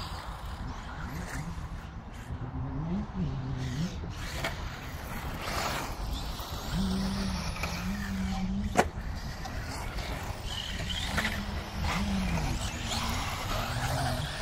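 Radio-controlled race cars running laps on a dirt track, their motors whining in pitches that rise and fall as they accelerate and brake. A sharp knock sounds about nine seconds in.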